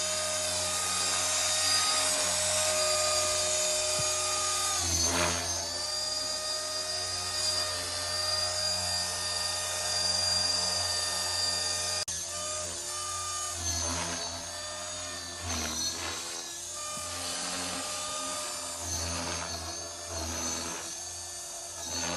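Radio-controlled model airplane's motor and propeller whining in flight, steady at first, then dipping and rising in pitch again and again as the plane throttles and turns through aerobatics.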